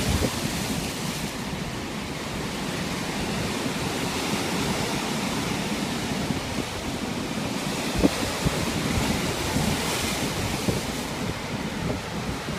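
Ocean surf breaking and washing over shoreline rocks: a steady rush of churning water, with wind buffeting the microphone and a brief thump about eight seconds in.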